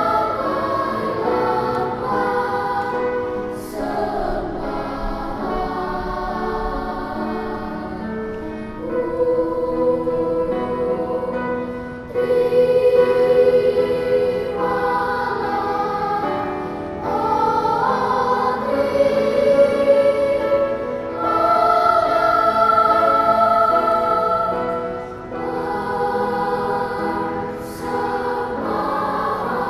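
Children's choir singing, with long held notes; it swells louder about twelve seconds in.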